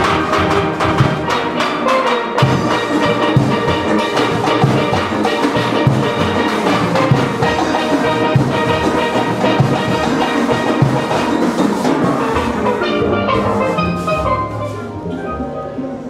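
Steelband playing: many steelpans striking chords and melody over a steady rhythm of drums and percussion. The music thins out and gets quieter near the end.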